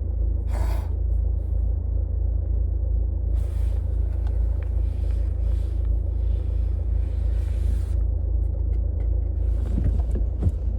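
Car cabin noise while driving: a steady low rumble of engine and road, with a stretch of higher hiss in the middle.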